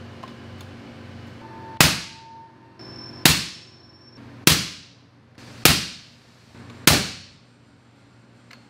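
Five suppressed 300 PRC rifle shots, a little over a second apart, each a sharp crack with a short echoing tail. Fired from a Christensen MPR through an AB Raptor suppressor for sound-level measurement.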